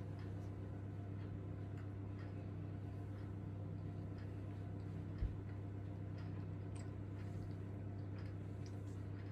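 Faint chewing and small mouth clicks from a person eating a pastry slice, over a steady low electrical hum, with one soft low thump about five seconds in.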